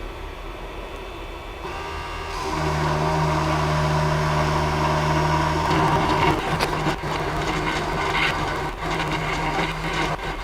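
Creality CP-01's CNC spindle motor starts up with a steady hum about two seconds in. From about six seconds the bit is cutting into the workpiece, adding a rough, uneven grinding with many small crackles over the hum.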